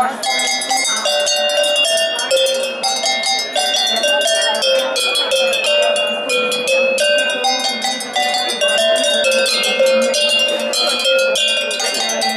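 A row of cowbells of different sizes hung from a wooden pole, struck by hand one after another to play a quick melody. Each stroke rings with its own clear pitch.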